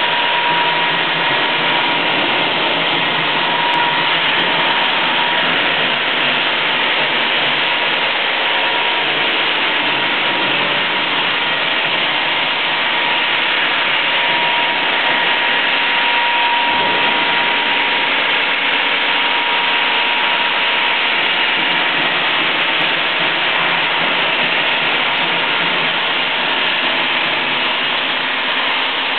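Automatic stone bridge saw running, its large diamond blade cutting through a stone slab: a loud, steady machine noise with a faint steady whine running through it.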